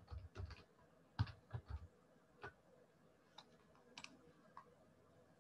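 Faint, irregular computer keyboard keystrokes: a quick cluster of clicks in the first two seconds, then a few scattered ones.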